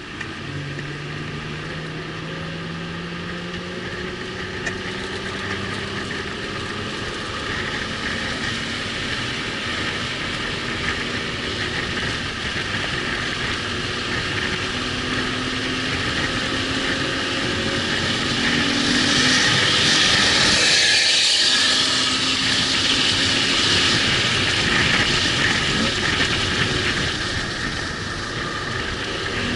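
Car engine pulling hard on a track-day lap. Its pitch climbs slowly and steps to a new pitch several times. A loud rush of wind noise builds about two-thirds of the way through.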